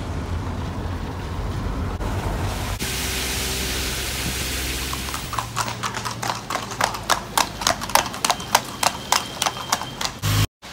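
Horse's hooves clip-clopping on a wet tarmac road as a pony pulls a cart, an even run of sharp strikes at about three to four a second. Before that there is a steady low rumble and hiss.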